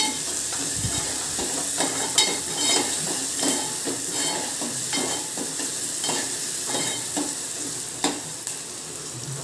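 Chopped onion, with garlic, curry leaves and green chilli, sizzling steadily in hot oil in a small steel pot as it fries toward pinkish-brown. A steel spoon stirs and scrapes against the pot with frequent light clicks. The sizzle grows a little quieter near the end.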